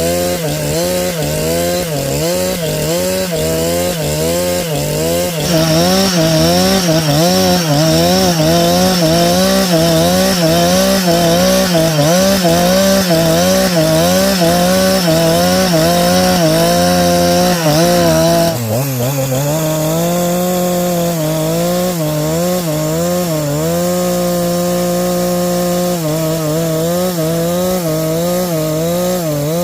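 Two-stroke chainsaw running at high speed while cutting a log lengthwise into boards, its pitch wavering as the chain takes the load. About a third of the way in a higher hiss joins and it gets louder; a little past halfway the engine dips briefly, then runs steadier and a little quieter.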